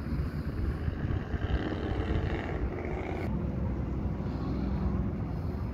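Jet engines of aerobatic display aircraft, heard as a steady, continuous rumble.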